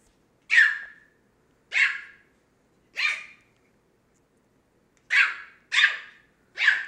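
Pomeranian puppy barking in high, sharp yaps: three about a second apart, a pause of about two seconds, then three more in quicker succession, a playful bid to get another dog to play.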